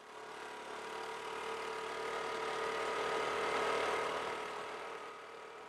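Small motor scooter engines running as the scooters ride closer, a steady hum that starts abruptly, grows louder toward the middle and then fades.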